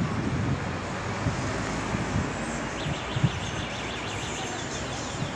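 City street traffic noise: a steady wash of passing cars and engines, with a few short low thuds.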